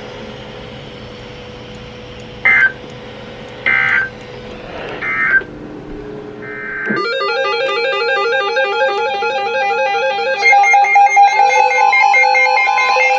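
Emergency Alert System end-of-message signal: three short two-tone data bursts (SAME 'NNNN' end-of-message code) about a second apart over a steady hum and hiss. From about seven seconds in, music with a fast repeating pattern of plucked or keyed notes takes over and grows louder.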